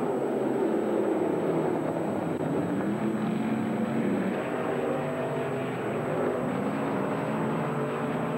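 Dirt late model race car engines running together at low pace-lap speed behind the pace car: a steady, mixed engine rumble with several pitches that shift slightly, and no sharp accelerations.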